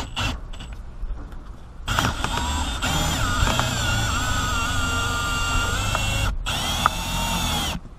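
Cordless drill driving a Ring Cut windshield cut-out winder, pulling the cutting wire through the glass's urethane bead. The motor whine starts about two seconds in and wavers in pitch. It stops briefly about six and a half seconds in, then runs again until just before the end.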